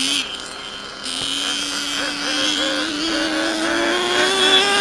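Small nitro glow-fuel two-stroke engine of an RC monster truck running, dipping briefly near the start, then climbing slowly and steadily in pitch from about a second in as it is throttled up.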